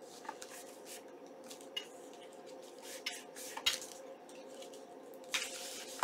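Paper envelopes being handled: soft rustles and light taps as hands set a small handmade envelope onto a glued flap and press it flat. A faint steady hum runs underneath.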